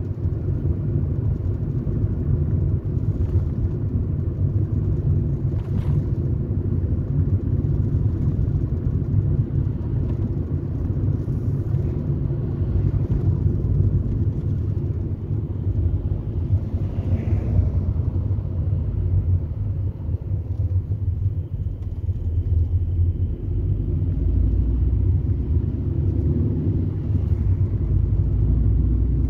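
Car driving at low speed, heard from inside the cabin: a steady low rumble of engine and road noise.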